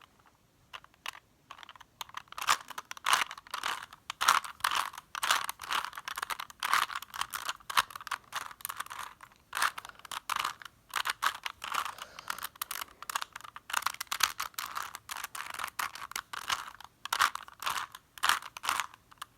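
Plastic Rubik's cube being twisted over and over: a fast, irregular run of clacking clicks from its layers turning, starting about two seconds in.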